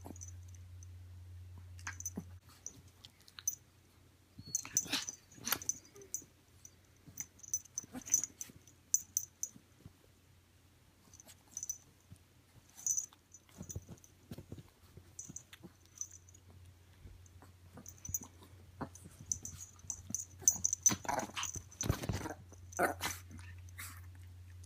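Chihuahua and kitten play-wrestling on a fabric bedspread: irregular scuffling and scratching, with short bursts of the dog's play sounds. It is busiest around five seconds in and again from about nineteen to twenty-three seconds, where it is loudest.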